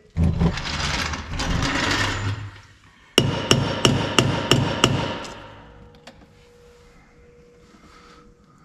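A hammer tapping a greaseable wet bolt into its bushing on a MORryde trailer suspension equalizer: about eight quick metallic blows in under two seconds, each with a short ring. The blows follow a few seconds of scraping and rustling.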